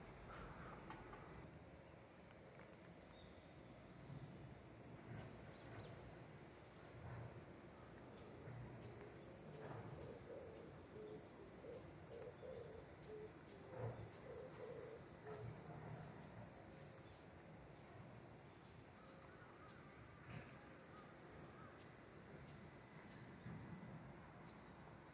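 Near silence with faint, steady, high-pitched insect trilling.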